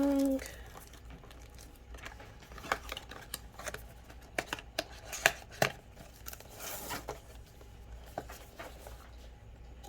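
Small cardboard box and plastic packaging being handled and opened by hand: scattered taps and clicks, a cluster of sharper ones about halfway through, and a short rustle soon after.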